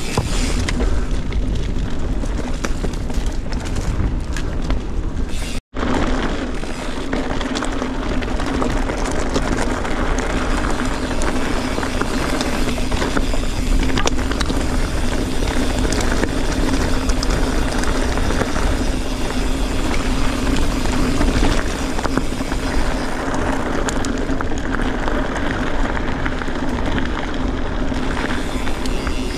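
Mountain bike ridden over rough, rocky ground, heard from a camera on the rider or bike: steady rush of wind on the microphone with tyre roar and the clatter and rattle of the bike over stones. The sound drops out completely for a moment about six seconds in.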